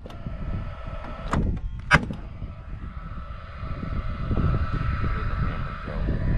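Two sharp knocks about half a second apart from fastening work on wooden porch framing, over a steady low rumble. A faint steady hum builds in the second half.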